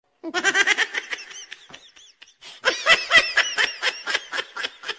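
Rapid, high-pitched giggling laughter in quick repeated bursts. It thins out midway and picks up again, a comedy laugh sound effect.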